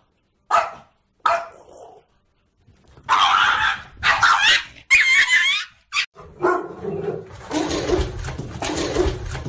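Dogs barking: a few short barks in the first two seconds, then three long, loud barks with bending pitch from about three seconds in, and denser barking from about six seconds on.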